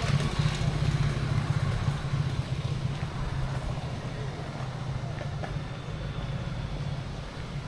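Low, steady engine rumble of a road vehicle, loudest at the start and slowly dying down.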